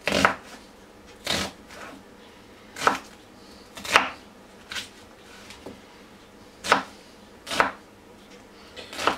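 Kitchen knife chopping an onion on a chopping board: about seven sharp, separate cuts at irregular intervals.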